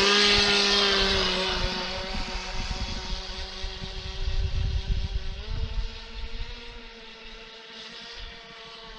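Radio-controlled speedboat's motor whining at speed as it passes close by with a hiss of spray, then fading as it runs away across the water. The whine drops slightly in pitch as it passes and steps up a little about five and a half seconds in.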